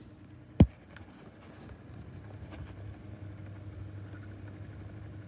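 2019 Schallen 12-inch desk fan running on low with oscillation on: a steady motor hum with the rough sound of badly worn bearings, which sound worse with oscillation engaged. One sharp click about half a second in.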